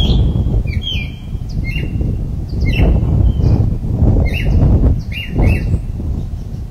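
Birds chirping: short, sweeping calls that come irregularly about every half second to a second, over a loud, steady low rumble.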